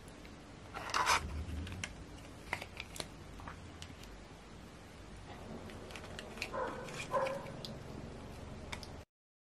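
A dog barking a few short times, about a second in and again twice around seven seconds, over soft clicks and taps of a phone charger and coiled cable being handled.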